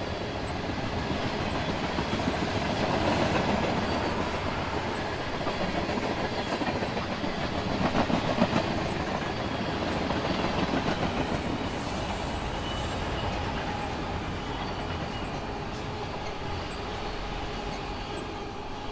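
Norfolk Southern freight train rolling past at steady speed: a string of tank cars and then autorack cars, steel wheels running over the rail.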